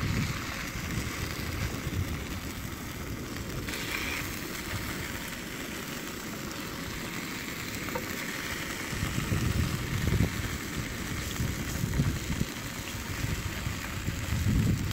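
Gusty wind rumbling on the microphone over a steady hiss of bacon slices sizzling in a frying pan on a gas camping stove.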